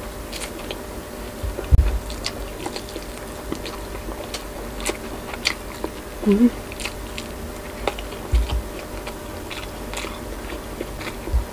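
Close-miked mukbang eating: biting into boiled pork rib meat and chewing it, with many small wet mouth clicks and smacks. A few low thumps come through, and a brief hum of the voice about six seconds in.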